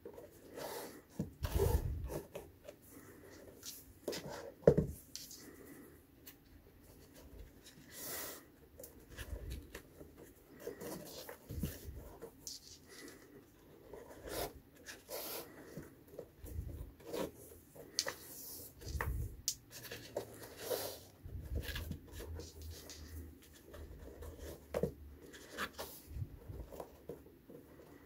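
Flat shoelaces being pulled through a sneaker's eyelets and handled: soft scattered rustles and scrapes of lace on leather, with a few dull thumps.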